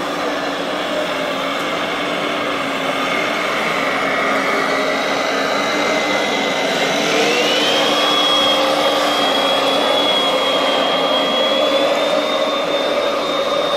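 Radio-controlled model dump truck's electric drive motor and gearbox whining steadily, with a high whine that rises in pitch about seven seconds in as the truck speeds up, over a general hum of other running RC machines.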